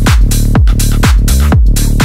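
Electronic dance music with a heavy kick drum on a steady beat, about two beats a second, over a sustained bass line.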